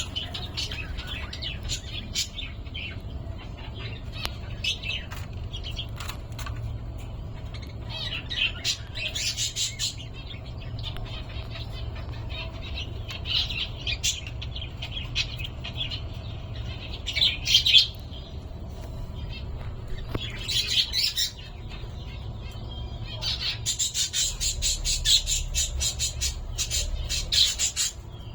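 Pet cockatiel calling and squawking in short, repeated high calls, with louder squawks near the middle and a fast run of calls in the last few seconds. A steady low hum runs underneath.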